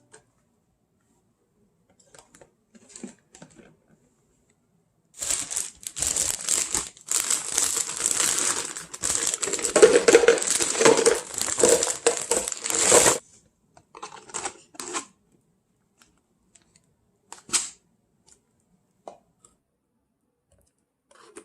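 Plastic being handled and crinkled: dense crackling rustle from about five seconds in to about thirteen seconds, with scattered small clicks and taps before and after.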